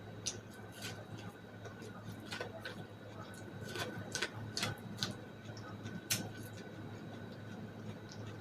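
Close-miked eating of boiled corn on the cob: bites and chewing make irregular sharp clicks and smacks, about a dozen, over a steady low hum.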